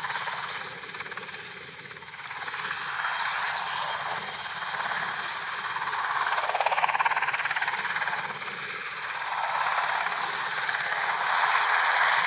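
NH90 helicopter's twin turboshaft engines and main rotor running as it taxis on the ground: a steady turbine whine and rotor rush that grows louder from about two seconds in and swells and eases a few times.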